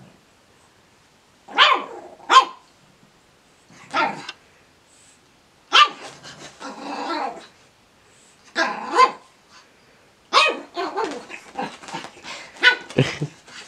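Eight-week-old pug puppy giving short, high play barks in bursts every second or two, inviting an older dog to play.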